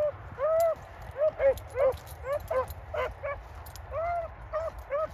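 A pack of rabbit hounds baying, several dogs giving short, arching yelps that overlap at about two or three a second, the sound of hounds running a rabbit's track.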